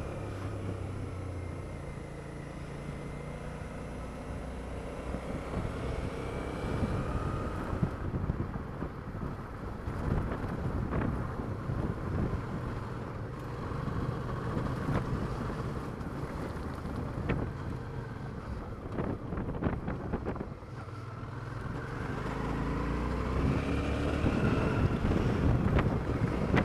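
Suzuki V-Strom motorcycle's V-twin engine running under way, with wind rush on the helmet microphone. Through the middle, on gravel, short sharp ticks and rattles from stones under the tyres join it, and near the end the engine note rises as the bike accelerates.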